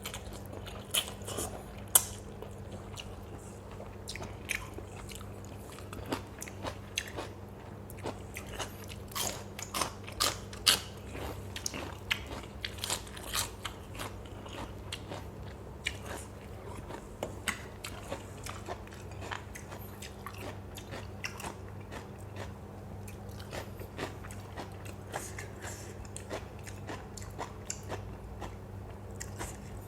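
A person biting and chewing a mouthful of som tum with crunchy lotus stems and fresh shrimp close to the microphone: irregular crisp crunches and wet clicks, with a low steady hum underneath.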